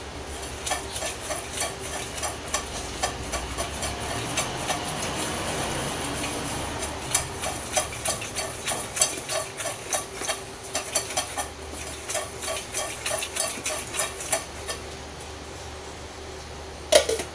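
Popcorn kernels popping inside a lidded metal saucepan as it is shaken: irregular sharp pops that come thick and fast through the middle, then die away. A single ringing metal clank of pan and lid comes near the end.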